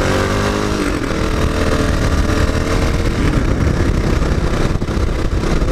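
Motorcycle engine running under way: its pitch dips about a second in, then climbs slowly as it pulls. After about three seconds a steady rush of wind noise on the microphone covers it.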